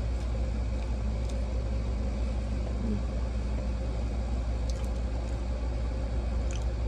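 Steady low electrical or mechanical hum of room background noise, with a few faint small clicks.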